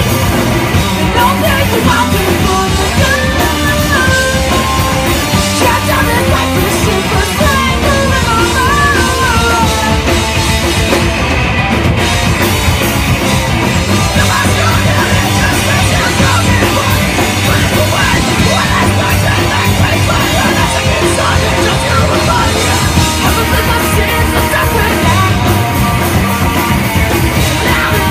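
Live rock band playing loud, with electric guitars. A high wavering melody line stands out over roughly the first ten seconds.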